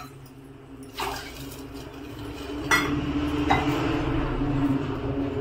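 A few sharp metal clinks of kitchen utensils and pots, about a second in, near three seconds and again half a second later. Behind them is a low steady hum and a rushing noise that builds from about a second in.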